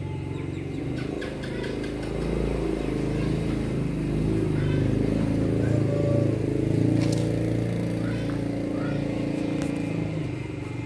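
A motor engine running steadily, getting louder for a few seconds and then easing off.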